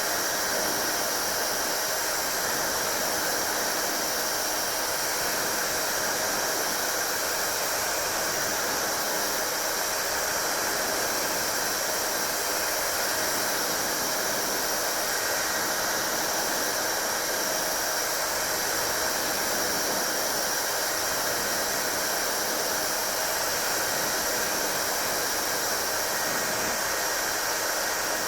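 Hair dryer running steadily, a constant rush of blown air with a faint steady motor whine.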